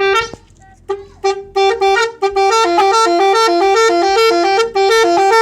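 Telolet horn, a multi-tone musical vehicle horn, playing a quick tune of short alternating notes. A brief blast opens, there is a short pause, then the notes run on continuously from about a second in.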